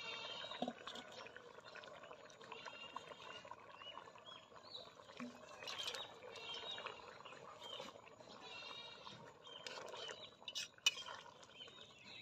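Birds chirping in short bursts every few seconds over the low, steady bubbling of masoor dal simmering in a kadai.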